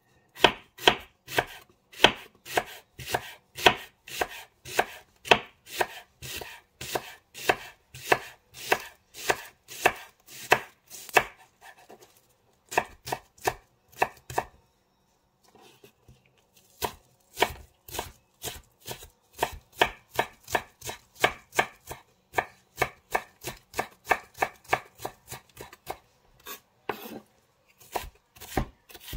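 Chef's knife slicing shallots on a wooden cutting board: a steady run of sharp chops, about two or three a second, with a pause of about two seconds a little past halfway. Toward the end the knife is chopping the sliced shallot fine.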